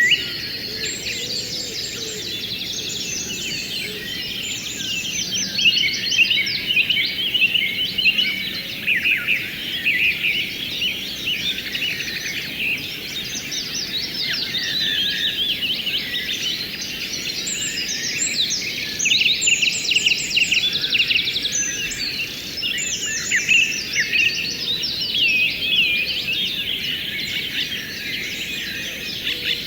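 A dense chorus of many small birds chirping and trilling at once, with rapid repeated notes, over a faint steady rush of flowing water.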